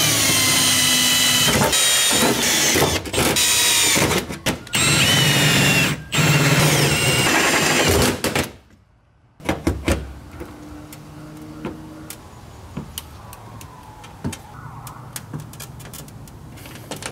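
Power drill boring into a diamond-plate metal panel: a loud motor whine that stops and starts several times and sags in pitch as the bit bites. After about eight seconds it cuts off, and only light clicks and taps of hand tools remain.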